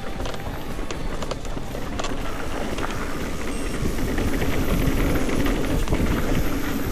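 Mountain bike riding down a dirt trail: steady rumble of tyres on dirt and wind on the microphone, with scattered clicks and rattles from the bike.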